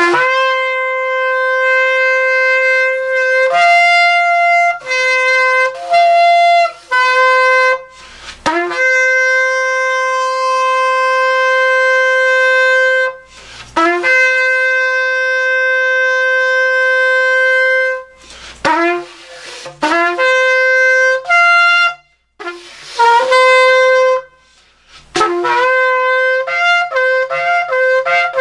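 A long, repaired and retuned shofar, about 42 inches, blown in a series of loud blasts. Each blast scoops up into a steady note, now and then jumping to a higher one. In the middle come two long held blasts of about four to five seconds each, and near the end a run of short, quick blasts.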